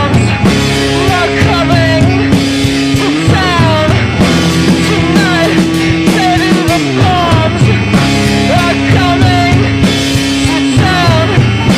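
Loud, distorted screamo/noise-rock recording: a high line slides down in pitch again and again over sustained low chords.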